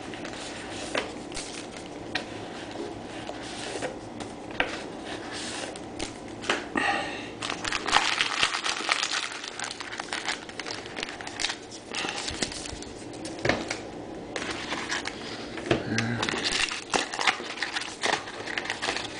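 Foil trading-card pack wrappers crinkling and cards being handled, with many small irregular clicks and rustles.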